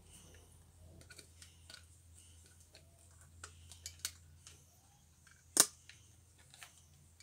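Faint, scattered clicks and taps of fingers handling a solid-body electric guitar and its plastic back cover plates, with one sharper click about five and a half seconds in.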